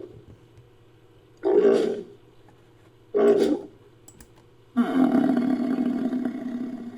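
Designed creature calls for Kalimantsia, an extinct chalicothere, made from bison, buffalo and bull recordings: two short calls about a second and a half apart, then one long drawn-out call starting near the five-second mark.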